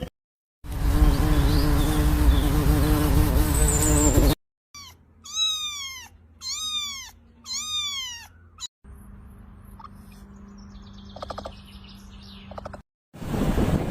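A cat meowing four times, each meow rising then falling in pitch. It comes between abrupt cuts: first a loud, rough sound of about four seconds, and after it a faint steady hum with a brief buzz.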